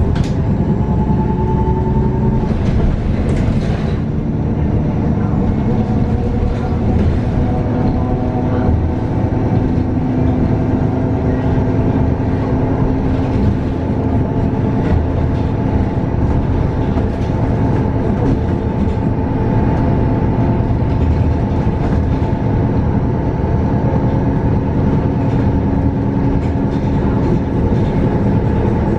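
2019 Nova Bus LFS CNG transit bus under way, heard from inside the cabin. Its Cummins L9N natural-gas engine and Voith D864.6 automatic transmission give a steady drivetrain hum with several held tones over road noise and light rattles.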